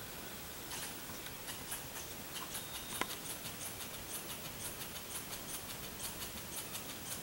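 Elk grazing close by: faint, irregular crisp ticks and snips of grass being cropped, several a second, with one sharper click about three seconds in.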